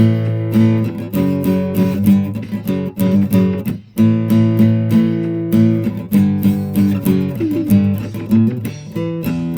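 Guitar music, strummed acoustic guitar chords in a steady rhythm, with a brief break just before four seconds in.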